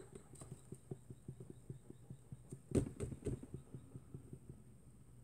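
A man crying quietly: a rapid run of soft, stuttering sobbing breaths, about five or six a second, with one louder sob a little under three seconds in, dying away after about four and a half seconds.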